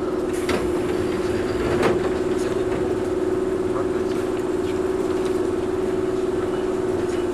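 Running sound inside a resistance-controlled Toyohashi Railway 1800 series (ex-Tokyu 7200) electric motor car travelling at steady speed: a steady hum over the rumble of wheels on rail. Two sharp knocks come about half a second and two seconds in.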